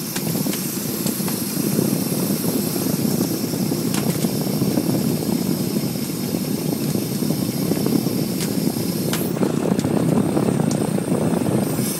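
A gillnet boat's engine running steadily, with a few light clicks over it.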